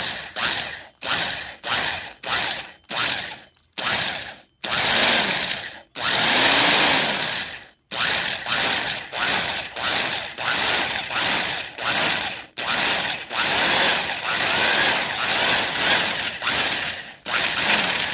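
An old electric drill reams a screw hole into the wooden forend of a rifle stock. It runs in short bursts of about two a second, with two longer runs a few seconds in, worked slowly so the thin wood does not crack.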